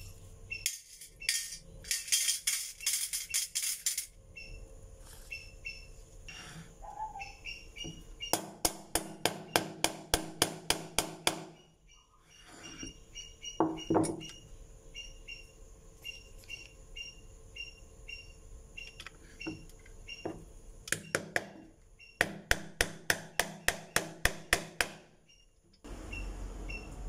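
Background music with a tapping percussion beat that comes and goes in runs of about four strokes a second, over short high chirps that repeat throughout.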